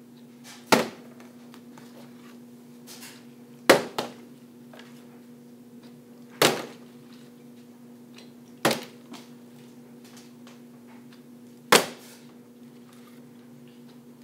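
A partly filled plastic water bottle being flipped and landing on a hard surface five times, each landing a sharp knock, some followed by a smaller knock as it bounces or topples. A faint steady hum lies underneath.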